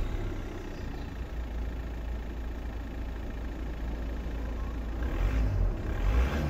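Volkswagen Jetta mk5's 1.9 TDI (BKC) four-cylinder turbodiesel idling steadily, heard from behind at the exhaust. Near the end it starts to pick up with light throttle blips.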